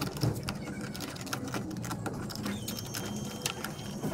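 Irregular small clicks and rattles of hands working on a fuel pump assembly, fastening the pump and its wiring clip.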